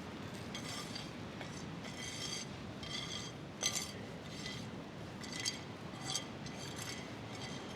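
Glasses, crockery and cutlery clinking: a string of short, ringing clinks over a steady background murmur.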